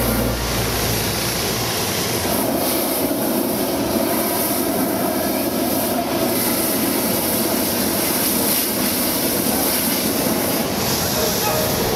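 Hot air balloon's propane burner firing in one long, steady blast as the basket lifts off.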